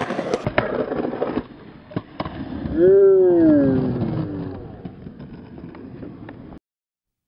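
Skateboard wheels rolling on concrete with several sharp clacks of the board. About three seconds in comes a long drawn-out shout whose pitch rises slightly then falls, the loudest sound here. It all cuts off suddenly near the end.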